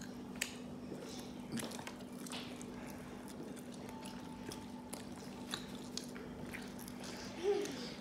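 Close-up chewing and biting of crispy fried chicken, with small wet mouth clicks and smacks, over a steady low hum. A short hum of the voice near the end.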